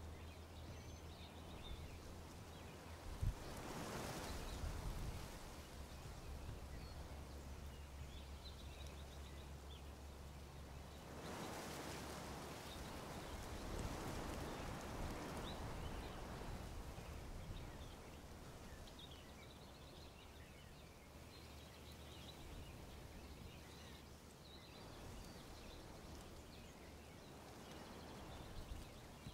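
Wind gusting through tree leaves in two swells, one about four seconds in and a longer one from about eleven to seventeen seconds, with faint, scattered bird chirps. A single sharp thump about three seconds in.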